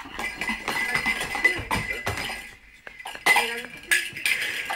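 Light clinking and rattling of small hard objects, a string of sharp clicks that comes thickest a little after three seconds in, over a voice and music from a television.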